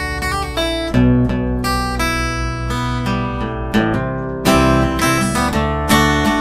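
Acoustic guitar strumming chords in an instrumental passage of a rock song's rough guide recording, a new chord struck every second or so.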